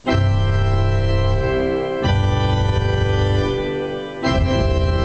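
Digital church organ playing loud full-organ chords over heavy pedal bass. It comes in abruptly, and the chord changes about two seconds in and again near the end.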